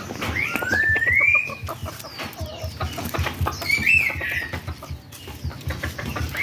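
Rooster giving two drawn-out rising calls, the first about half a second in and the second near four seconds in, amid knocks and rustling from the bird being handled.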